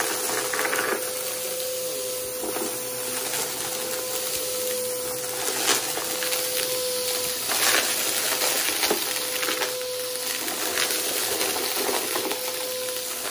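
Vacuum cleaner running with a steady whine over a rushing hiss of air, while dry debris is sucked up with scattered crunches and rattles, a few of them louder.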